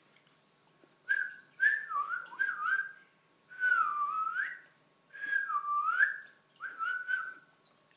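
A person whistling with the mouth: six short whistled phrases separated by brief pauses, each a single tone that swoops down in pitch and back up.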